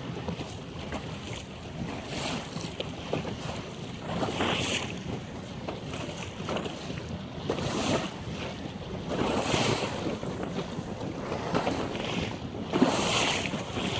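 Wind buffeting the microphone and waves washing against a small boat, swelling in a few gusts or surges.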